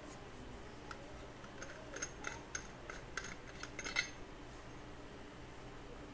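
A quick series of light clinks, like small metal or glass objects knocking together, about ten over three seconds, the last one about four seconds in the loudest.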